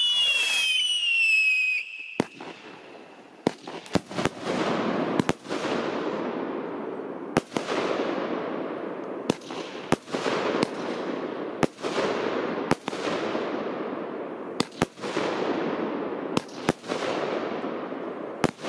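Fireworks: a whistle falls in pitch for about two seconds, then a string of sharp bangs follows roughly once a second, each trailing off into a long noisy tail.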